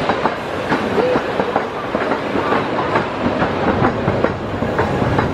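An amusement-ride train clattering along its track: a fast, continuous rattle of wheels over rail joints.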